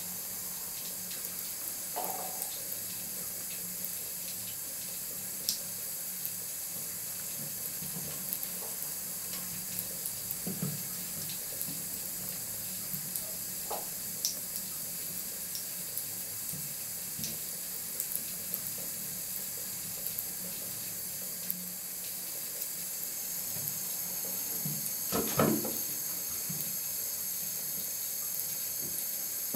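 Bath tap running a thin stream of water into a bathtub, a steady hiss throughout, with scattered small clicks and a louder brief noise about 25 seconds in.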